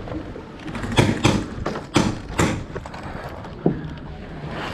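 A handful of irregular sharp knocks, the loudest a little past the middle.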